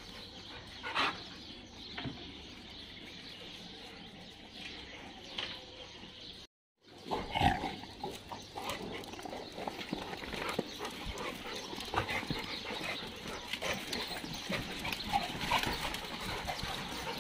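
Dogs in a boarding kennel: occasional short dog noises among scattered knocks and clicks. The sound cuts out briefly about six and a half seconds in.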